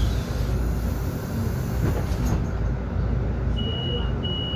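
Cabin sound of a Solaris Urbino 18 IV articulated city bus running: a steady low rumble. Near the end come two short, high, steady beeps.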